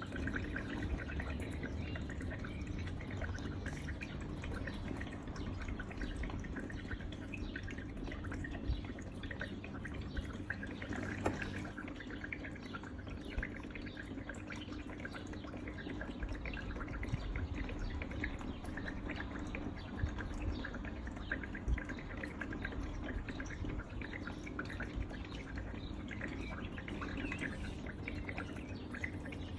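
Tabletop decorative water fountain running: water trickling and dripping steadily over its miniature waterfall, with the low steady hum of its small pump underneath.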